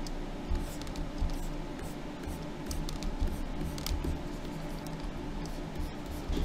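Faint scratches and clicks from hands working computer input devices, scattered and irregular, over a steady low hum.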